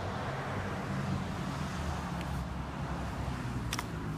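A steady low engine-like hum with a rushing haze, which could be wind on the microphone, and one sharp click near the end.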